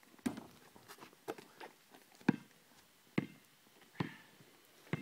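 A basketball bounced slowly on an asphalt court, six sharp thuds about once a second.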